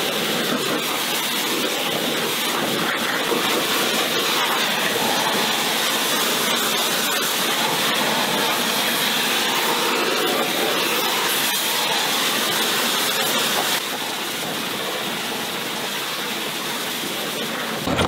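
Pressure washer spraying a steady high-pressure jet of water onto a car's alloy wheel and wheel arch: a constant hissing spray, slightly quieter for the last few seconds.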